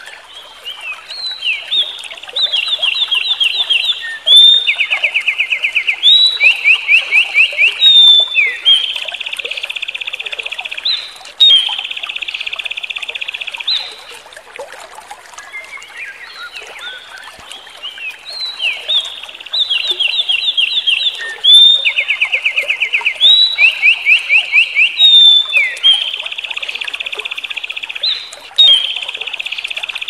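A small songbird singing two long songs, each a chain of different rapid trills and quickly repeated notes, with a short pause about halfway through.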